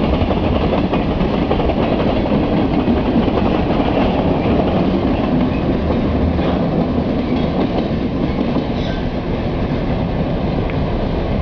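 Freight train rolling past, a steady rumble of steel wheels on the rails with faint rhythmic clicking, easing slightly near the end.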